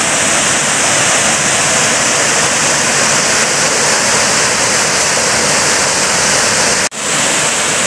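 Water pouring over a small stone weir spillway: a loud, steady rush of falling, churning water close to the microphone, cutting out for an instant about seven seconds in.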